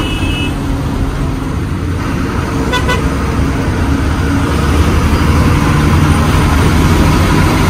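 Ashok Leyland truck's diesel engine running while the truck drives, heard from inside the cab, getting a little louder about five seconds in. A brief horn toot sounds about three seconds in.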